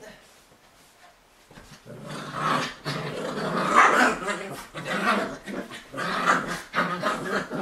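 Bichon Frise dogs growling and grumbling in play as they tussle, starting about two seconds in and going on in uneven rising and falling runs.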